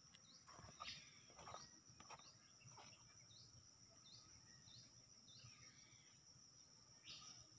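Faint wooden knocks as cut logs are laid onto a stacked woodpile, several in the first three seconds and one more near the end. Under them a short high chirp repeats about every half second, over a steady high insect hum.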